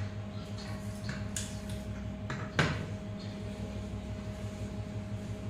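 Aluminium window frame with a glass pane being handled: a few light clicks and one sharp knock of the aluminium profile about two and a half seconds in, over a steady low hum.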